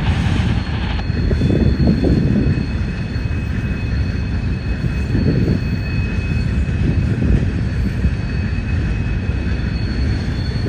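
Freight train of steel-coil flatcars and covered hoppers rolling past: a steady rumble of wheels on the rails, with a faint high steady tone above it.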